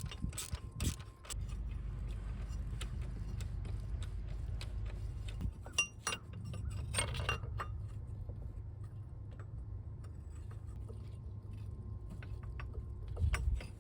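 Hand tools working a fastener: a few ratchet clicks at the start, then scattered light metal clinks of tools and parts being handled, over a low steady hum.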